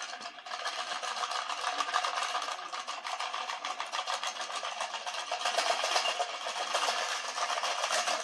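Metal-cored twist ties rattling and scraping inside a plastic cup shaken by hand, a dense continuous rattle that stops abruptly at the end.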